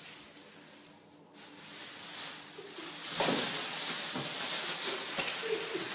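Plastic bag crinkling and rustling as a cat with its head caught in it drags and scrambles with it, getting louder and busier about halfway through as the cat bolts.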